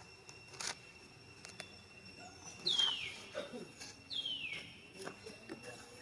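Two short high animal calls, each sliding down in pitch, about a second and a half apart, over a steady high drone.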